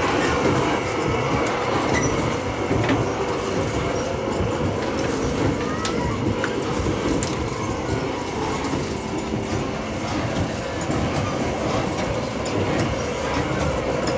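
Horse carousel turning, its drive and platform giving a steady rumble and rattle with scattered light clicks.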